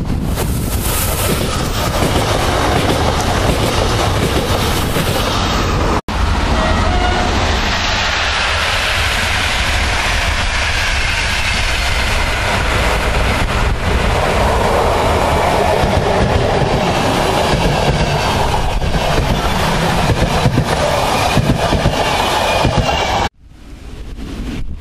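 Electric passenger trains passing close by: first an electric multiple unit approaching, then, after a brief break in the sound about six seconds in, a locomotive-hauled train of coaches rolling past with its wheels clacking over the rails. The sound drops away sharply near the end.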